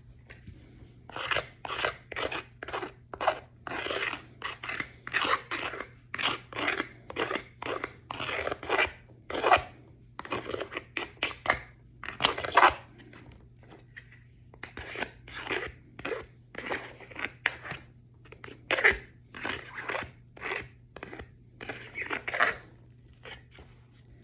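Razor knife blade scraped repeatedly along the edge of a plastic armour piece to take off its white edge: a long run of short scraping strokes, about one to two a second.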